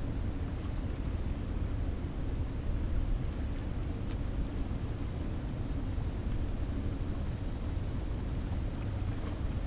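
Steady low rushing rumble of water pouring through a dam spillway, with a steady high insect drone above it.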